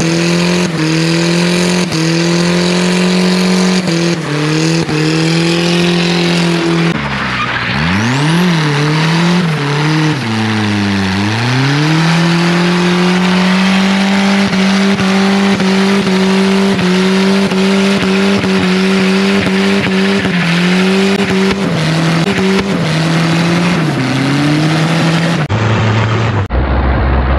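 Turbocharged Nissan D21 Hardbody pickup doing a burnout on a welded rear differential: the engine held at high, steady revs while both rear tyres spin with a hiss of tyre squeal. About eight to eleven seconds in the revs drop and climb sharply a few times as the throttle is lifted and reapplied, then hold steady again, with a short dip near the end.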